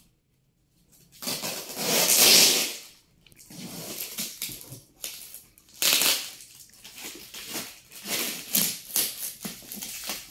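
Yellow plastic packing tape being ripped and peeled off a cardboard box. It starts about a second in with one long, loud pull, then goes on in a run of shorter tearing pulls with crinkling in between.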